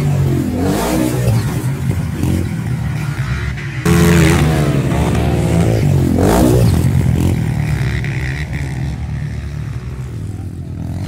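Motocross dirt bike engines revving on the track, pitch repeatedly rising and falling as the throttle is opened and shut. The sound jumps suddenly louder about four seconds in, then slowly eases off.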